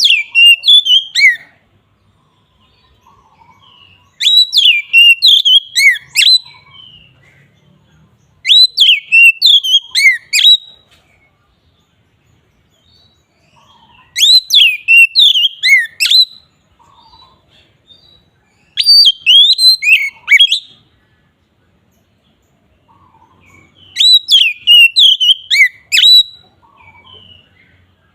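Oriental magpie-robin (kacer) singing its loud, open 'ngeplong' song. It gives six bursts of rich, sweeping whistled phrases, each about two seconds long and coming every four to five seconds, with soft short notes in the gaps.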